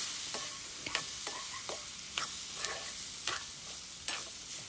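Metal spoon scraping and clinking against a metal wok as vegetable fried rice is stirred, several irregular strikes over a steady sizzle from the hot pan.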